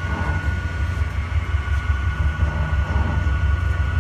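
Afeco paddle mixer running on its timed mix cycle: a steady low rumble with a thin, steady whine above it.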